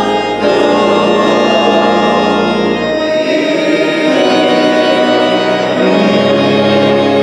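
Organ playing a hymn in slow, sustained chords that change about every three seconds.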